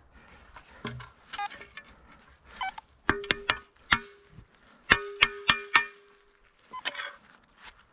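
A dug-up metal tin knocked against a steel spade to shake the soil out: two quick runs of sharp clanks, about three and then four, each with a short ring, after some soft scraping of soil.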